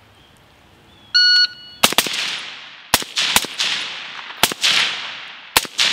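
A shot timer's start beep, then about six rifle shots over the next four seconds, each followed by a tail of echo.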